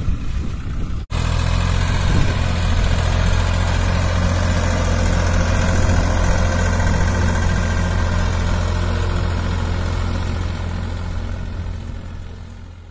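Tractor diesel engine running steadily while pulling a disc harrow through a standing mung bean crop. There is a brief break in the sound just over a second in, and it grows fainter near the end.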